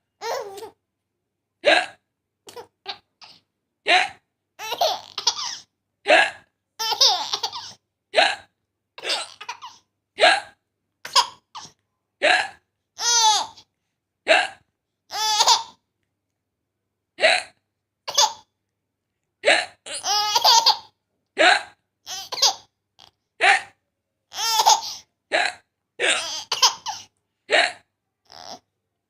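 A woman hiccuping again and again at uneven intervals, with bursts of laughter mixed in between the hiccups.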